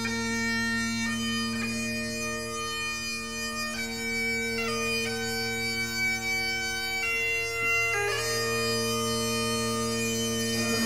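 Bagpipe music: steady drones sounding beneath a slow chanter tune, its notes changing about once a second.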